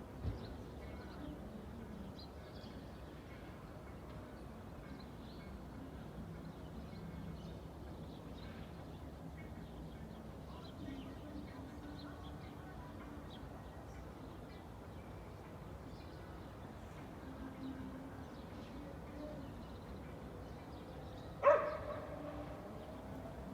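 Suburban outdoor ambience: a steady low hum of distant traffic with faint, scattered bird chirps. Near the end a dog barks once, loud and short, the loudest sound here.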